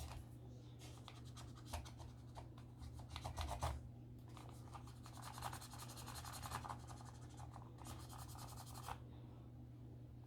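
Alcohol wipe rubbed quickly back and forth over the plastic underside of a Logitech G300S mouse, scrubbing off leftover glue residue where the old glide feet were. The faint scratchy strokes come in several runs and stop about a second before the end.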